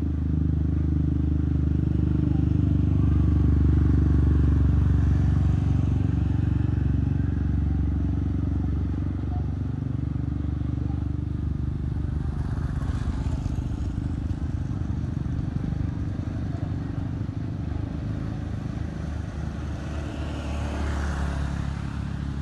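Motor vehicle engine running steadily with a low hum. Other traffic swells past about halfway through and again near the end.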